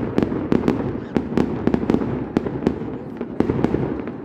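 A fireworks display going off: a rapid, irregular string of sharp bangs and pops, about three a second, over a steady low rumble of crackling.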